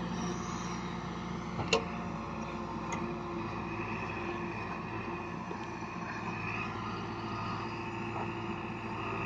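JCB 3DX backhoe loader's diesel engine running steadily, with one sharp knock a little under two seconds in.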